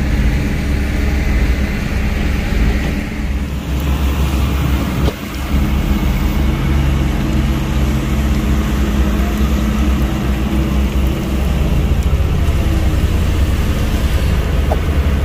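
Heavy-equipment diesel engine running steadily and loudly, with a brief dip in level about five seconds in.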